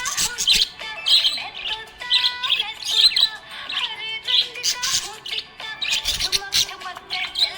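Budgerigar chirping and warbling: a fast, continuous run of short chirps, clicks and brief whistles.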